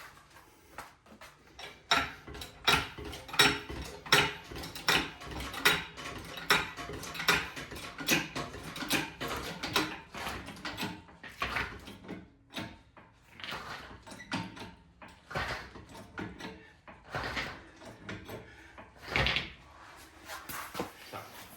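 Car jack being worked to lift the car: a steady run of sharp metal clicks and clanks, a little more than one a second, with a short pause about halfway through.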